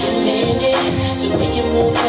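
Recorded dance music with a steady beat and held melodic tones, without vocals.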